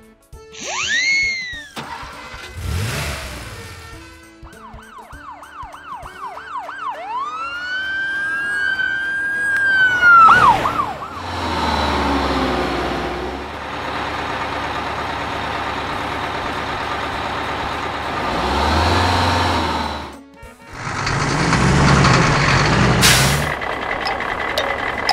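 Cartoon ambulance siren sound effect: a fast yelping siren, then a long rising wail that drops off about ten seconds in. It is followed by a vehicle engine running steadily as a bus drives along, and another engine swell near the end.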